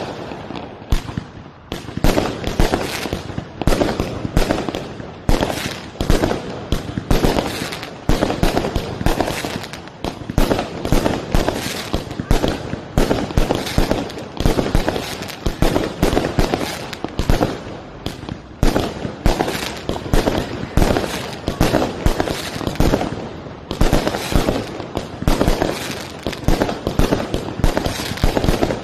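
Fireworks going off without a break: aerial shells bursting overhead, a dense string of bangs and cracks several times a second.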